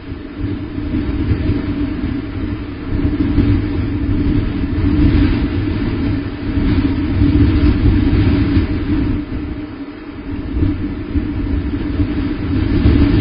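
Wind buffeting the nest camera's microphone: a low rumble that swells and fades in gusts every few seconds.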